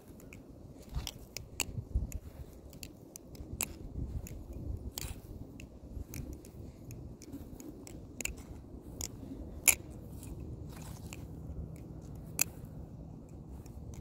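Balisong (butterfly knife) being flipped: irregular sharp clicks and clacks as the handles and blade swing and knock together. Two clacks in the second half are louder than the rest.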